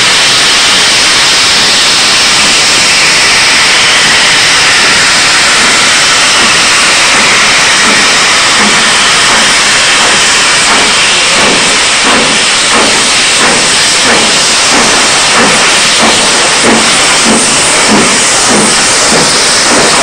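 LMS Princess Coronation Class steam locomotive starting away, with a loud steady hiss of steam from its open cylinder drain cocks. From about eight seconds in, the exhaust beats come through as a slow, regular chuffing that grows clearer as the engine gets under way.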